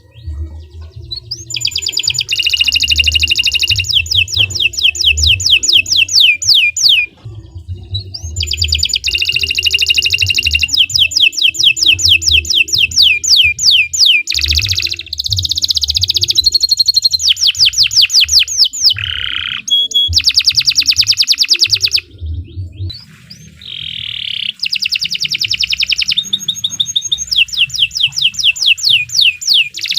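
Domestic canary singing long rolling phrases of fast, repeated trill notes, with brief pauses between phrases.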